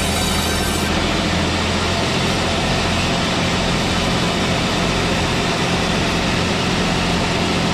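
Sawmill machine running with a steady, loud engine drone.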